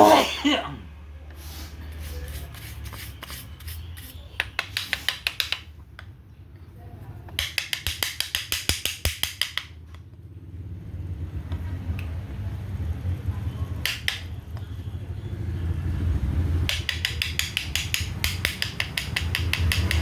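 Runs of rapid small clicks, about ten a second, from hand work with a screwdriver on a small plastic hair clipper, with a loud knock at the very start. A low steady hum grows louder in the second half.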